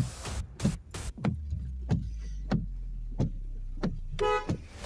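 A car's engine running with a low steady hum, under regular ticks about one and a half a second, the pace of a turn signal. A few clicks come at the start, and there is a short pitched beep near the end.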